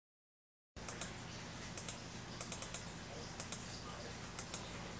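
Dead silence for the first moment, then faint, irregularly spaced keystrokes on a computer keyboard over a low electrical hum.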